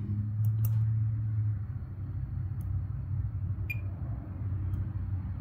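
Steady low hum of the workbench room, with a few faint clicks as multimeter probe tips touch the circuit board. A brief beep comes from the Fluke 115 multimeter about three and a half seconds in, as it reads a diode drop of 0.637 on a pin of the MagSafe board.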